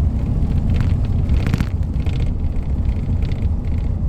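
Strong wind buffeting the microphone: a loud, steady low rumble with faint rustling on top.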